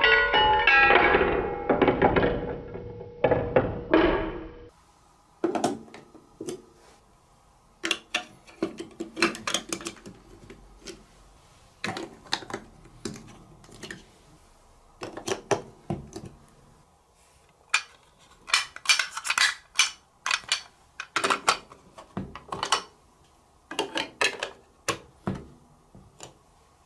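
A plastic ball rolling down a toy marble-run xylophone chute, ringing its plastic bars one after another in quick notes for the first few seconds. Then large plastic building blocks and track pieces are pressed and snapped together by hand, in irregular clacks and clicks with short pauses.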